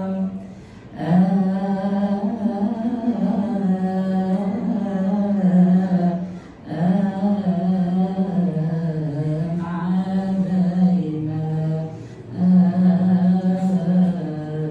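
A man's voice chanting a long melisma in Coptic liturgical style, unaccompanied: held notes that bend up and down, with short breaks about a second in, at about six and a half seconds, and near twelve seconds.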